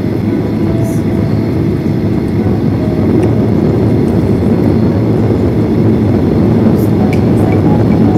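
Boeing 737-800's CFM56 jet engines and airframe rumble heard from inside the cabin as the aircraft moves on the ground. A loud, steady low roar grows a little louder about three seconds in, with a few faint rattles.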